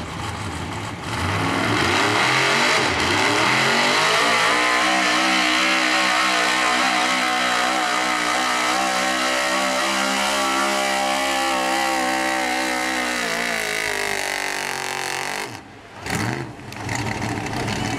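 Chevrolet square-body 4x4 pulling truck's engine revving up about a second in and running at full throttle while it drags a weight-transfer sled, its pitch climbing slightly as the pull goes on. Near the end the throttle is let off suddenly as the pull ends, with one short blip of the engine after.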